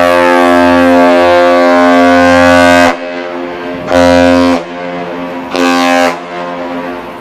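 Loud, low-pitched horn giving the traditional captain's salute between a Great Lakes freighter and the Aerial Lift Bridge: one long blast, then two short ones.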